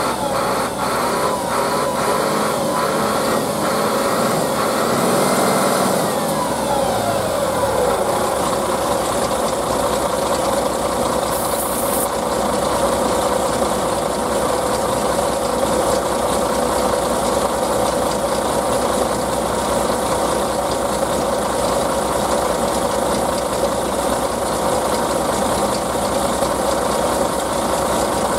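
Solaris Urbino 15 III city bus engine idling, heard from underneath the bus. For the first few seconds there is a regular ticking about twice a second and a whine that falls in pitch, then the engine settles to a steady idle with a constant hum.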